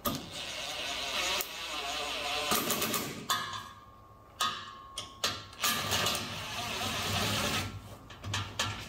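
Cordless impact driver running in two long bursts with a shorter one between, driving bolts into nutserts to fasten a bracket to a truck frame.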